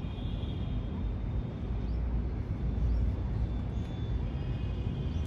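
Low, uneven rumble of outdoor background noise, swelling a little around the middle.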